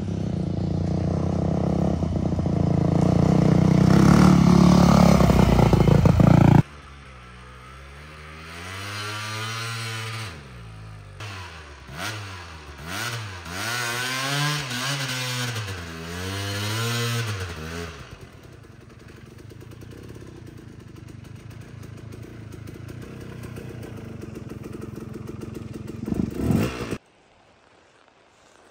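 Dirt bike engine running close up while being ridden, growing louder over the first six seconds and then cutting off suddenly. A dirt bike follows, heard from farther off, revving up and down again and again as it climbs a snowy trail. After that comes a softer, even sound that stops abruptly near the end.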